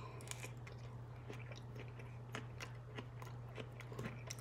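A man chewing a bite of seasoned mango close to the microphone: soft, irregular small clicks of chewing, over a steady low hum.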